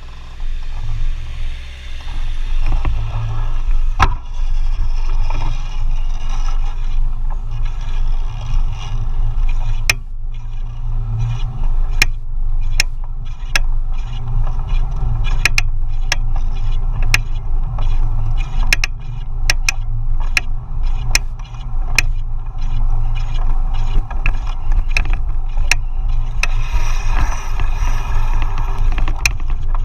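KBO Hurricane being ridden, with a low rumble of wind and road. Over it come sharp clicks or knocks, first once and then repeating irregularly about once a second. This is the abnormal noise that the rider has recorded as a fault for support to analyse.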